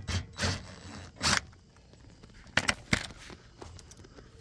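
A handful of short scrapes and clicks from handling work under a travel trailer: the loosened underbelly skin being pulled down by hand, with a quieter stretch about two seconds in.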